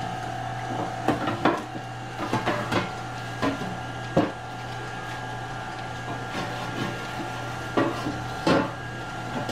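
Stick of butter rubbed and scraped around the inside of a large black enamel roasting pan, with a dozen or so short knocks and scrapes as the pan is handled on the counter. A steady hum runs underneath.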